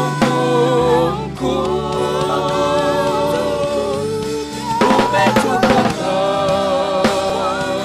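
Gospel worship music: sustained keyboard chords with sung voices over bass and a drum kit, the bass entering about a second in and a drum fill with snare hits about five seconds in.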